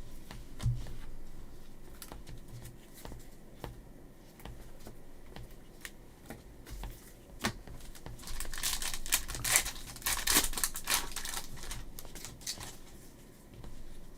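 A trading-card pack's foil wrapper being torn open and crinkled: a dense run of crackling and tearing about eight seconds in, lasting around three seconds. Before it, scattered light ticks and taps of cards being handled.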